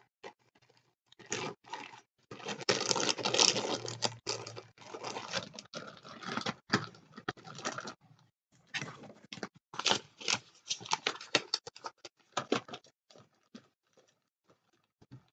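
Plastic kit packaging being handled: crinkling and rustling of plastic bags and cardboard, with small clicks and knocks. The densest crinkling comes about two to five seconds in, then shorter bursts that thin out toward the end.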